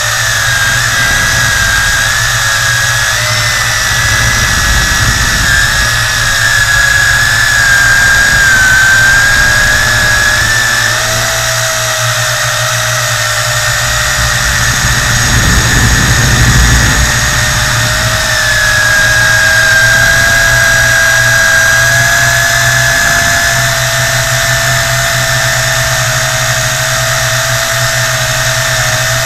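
Tarantula X6 quadcopter's motors and propellers whining steadily, picked up by a dashcam mounted on the drone; the whine's pitch drifts up and down a little as the drone manoeuvres, with a low rumble of air swelling about halfway through.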